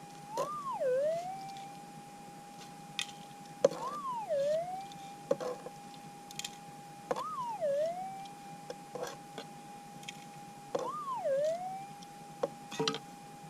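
Minelab GPX 6000 metal detector holding its steady threshold tone, broken four times, about every three and a half seconds, by a target signal that rises and then dips in pitch as a nugget-bearing piece of broken rock is swept over the coil. A few sharp clicks from rock fragments being handled.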